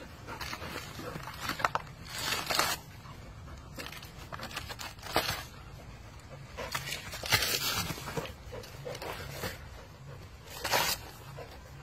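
A dog tearing the fibrous husk off a coconut with its teeth: irregular bursts of ripping and crunching of dry coir fibre, several in a row.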